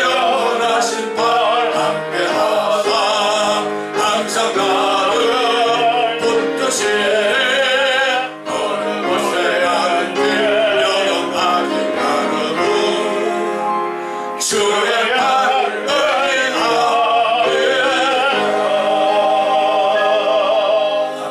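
A man singing a slow hymn with a wide vibrato, phrase by phrase, over held instrumental accompaniment, with brief breaths between phrases.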